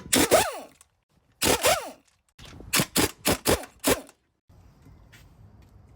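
Impact wrench on a wheel's lug nuts: two long bursts, each winding down in pitch, then a quick run of about five short bursts before it stops.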